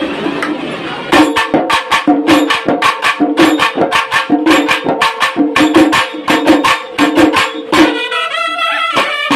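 Kerala temple festival band playing: a fast, even drum-and-jingle beat of about four strokes a second starts about a second in over a steady held drone, and the nadaswaram reed horns come in with melody near the end.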